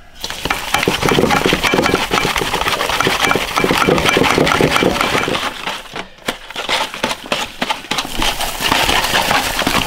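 Hands kneading a wet mixture of minced pork, egg and cornstarch in a stainless steel bowl: rapid squelching and slapping strokes, with a short break about six seconds in.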